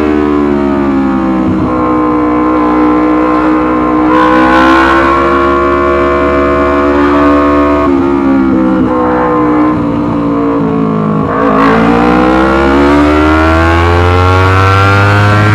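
Yamaha R25's 250 cc parallel-twin engine with a Racefit Slash aftermarket exhaust, running loud at high revs. The pitch rises about four seconds in, sags to a dip about eleven seconds in, then climbs again.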